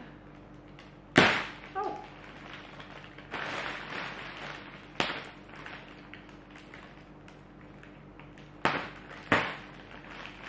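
A parcel of fabric in plastic wrapping being unpacked by hand: rustling and crinkling, broken by a few sharp snaps, the loudest about a second in and two more close together near the end.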